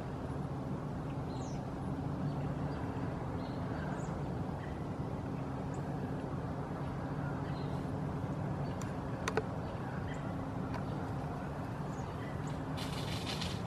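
Steady low mechanical hum, with a few faint high chirps, a sharp click about nine seconds in and a brief rustle near the end.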